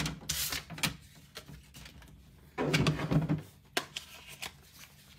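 Hard plastic graded-card slabs being handled and shuffled: a rustling scrape at the start, another around the middle, and a few sharp clacks.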